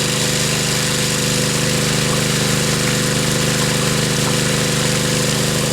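Engine of a 2-inch highbanker dredge's water pump running at a steady, even speed while pumping water through the sluice box; the motor seems to be running alright.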